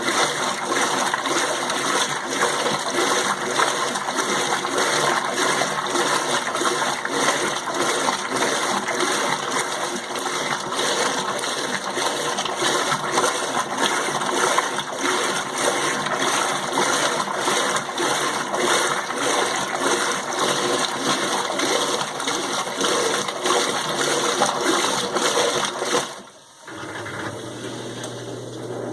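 Electrolux LM08 Turbo Limpeza 8 kg washing machine in its rinse cycle: water rushes steadily in the tub, then cuts off suddenly near the end, leaving a low steady hum from the machine.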